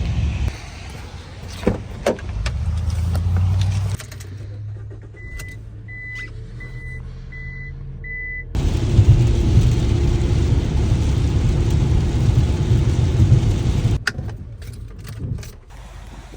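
Ram ProMaster City camper van driving, with a steady low engine and road rumble that cuts in and out abruptly. In a quieter stretch near the middle come five short, evenly spaced high electronic beeps, and there are a few sharp clicks near the start and near the end.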